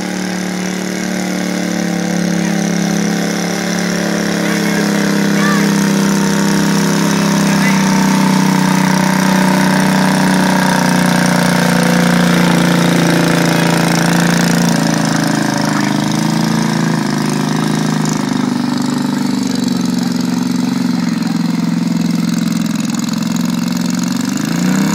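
Engine of a small pulling lawn tractor running steadily under load as it drags a weight-transfer sled, its pitch rising near the end.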